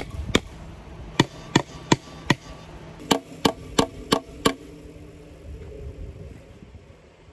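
Hammer blows on a wooden H-brace fence post, fastening barbed wire: about eleven sharp strikes in two runs of roughly three a second, with a pause about halfway.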